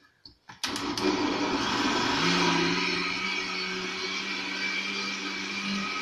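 Countertop electric blender switched on after a couple of clicks about half a second in, then running steadily as it purées frozen strawberries and beetroot into juice. Its low hum steps up slightly about two seconds in.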